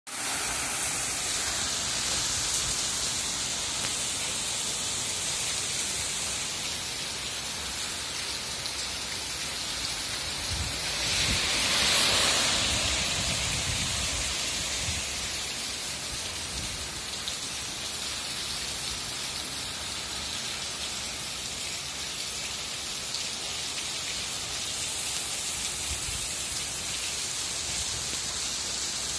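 Heavy rain pouring onto wet paving and a road, a steady hiss that swells louder for a few seconds about midway.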